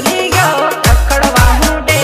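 Gujarati Adivasi timli DJ remix music: a driving beat of deep bass hits that slide in pitch, with a melody line over it and no singing.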